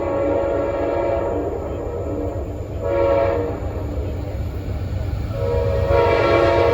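Passenger-train locomotive horn sounding the grade-crossing signal: a long blast that ends about two seconds in, a short blast around three seconds, and another long blast starting about a second before the end. The train's low rumble runs underneath.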